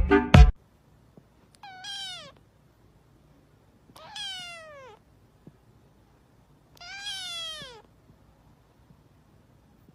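A fluffy white kitten meowing three times, a couple of seconds apart, each meow a high-pitched call that slides downward. A snatch of music cuts off about half a second in.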